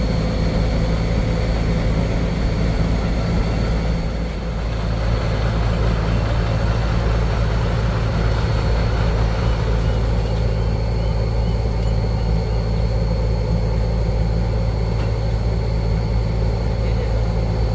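Large diesel truck engine idling steadily, a low even drone.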